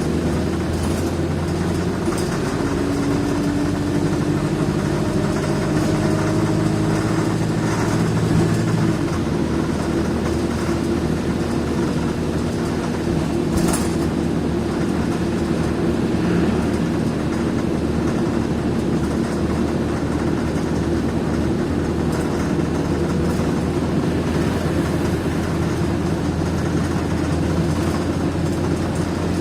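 Wright Eclipse single-deck bus running with a steady engine drone. A faint rising whine comes in the first several seconds, the engine note changes about nine seconds in, and a brief hiss comes about fourteen seconds in.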